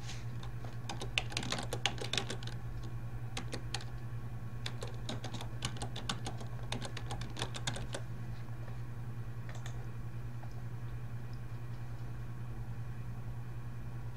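Computer keyboard typing: a run of quick keystrokes over the first eight seconds or so as a username and password are entered, then a single click a little later. A steady low hum runs underneath.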